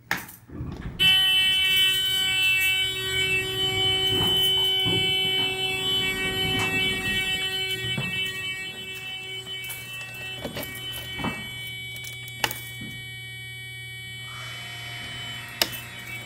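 Elevator fire service alarm buzzer, set off by turning the fire service key switch, sounding one steady tone. It starts about a second in, is loud at first and grows fainter, with a few sharp clicks from the key switches near the end.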